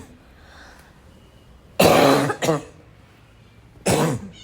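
A person's barking cough: a loud double cough about two seconds in, then another single cough near the end.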